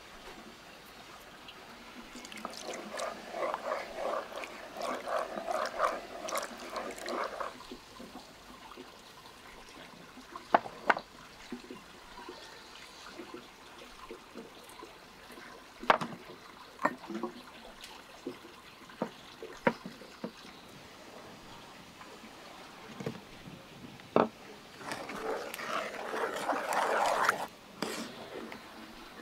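Thick red sauce worked with a wooden spoon in a wooden bowl, in two spells of wet mixing and sloshing, with scattered light clicks and knocks of spoons and clay spice bowls between.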